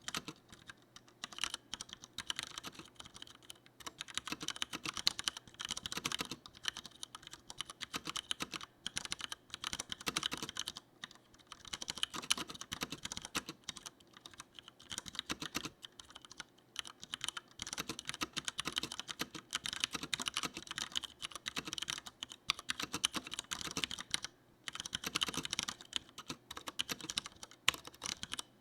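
Typing on a Leopold FC900R full-size mechanical keyboard with Cherry MX Brown tactile switches: a fast, continuous run of key clacks, broken by a few brief pauses.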